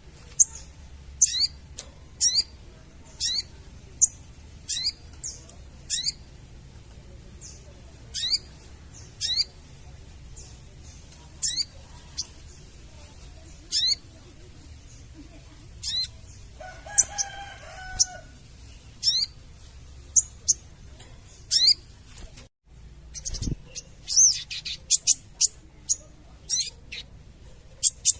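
Crested jay (sogon) calling: sharp, quickly falling chirps repeated about once a second, coming faster in the last few seconds. A fainter, lower drawn-out call sounds about two thirds of the way through.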